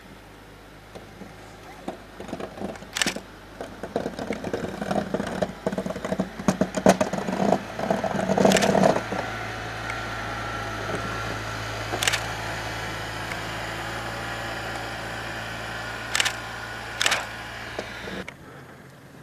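ATV engine running, with irregular clattering over the first half, then a steadier drone with a faint whine. A few sharp clicks stand out, and the engine sound drops away near the end.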